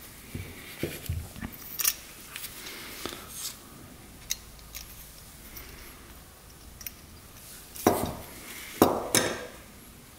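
Metal carburetor parts from a 5 hp Briggs & Stratton engine clicking and clinking as they are handled during disassembly: scattered light clicks, then two louder knocks near the end.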